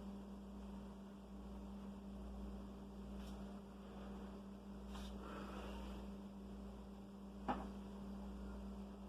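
Steady low electrical hum, with a few faint clicks and taps from handling computer parts and cables; the sharpest tap comes about seven and a half seconds in.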